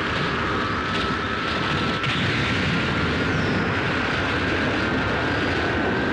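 Anime power-up sound effect: a loud, steady rumbling roar with a high sustained whine over it, the sound of a fighter's glowing energy aura flaring up.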